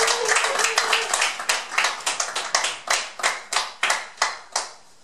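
A small audience applauding: dense clapping at first that thins out into a few spaced, slower claps and dies away near the end.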